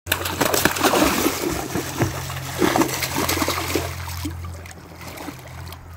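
A hooked coho salmon thrashing and splashing in shallow river water, with many quick splashes over the rush of the current. The splashing is strongest for the first few seconds and eases near the end.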